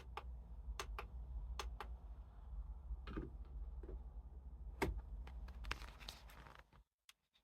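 Sharp plastic clicks of an alarm clock's buttons being pressed, several in quick pairs, over a low steady hum; a short rustle of handling near the end.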